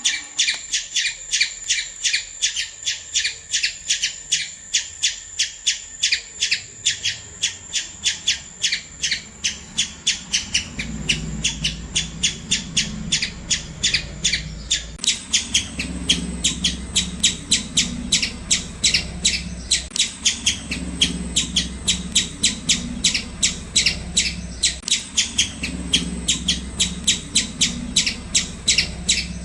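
Squirrel giving a long run of short, sharp chirping calls in an even rhythm, about three a second, without a break.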